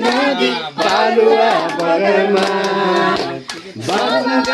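Singing of a Nepali song, with long held notes, accompanied by hand clapping.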